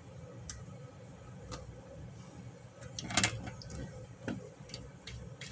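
Scattered light knocks and clicks as a wooden strip is handled and set against the metal housing of an LED shop light, the loudest a quick cluster about three seconds in, over a faint steady hum.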